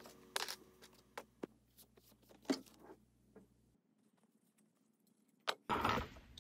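Faint, scattered clicks and taps of small hand tools and aluminium parts being handled and set down on a paper-covered workbench, with a short rustle near the end.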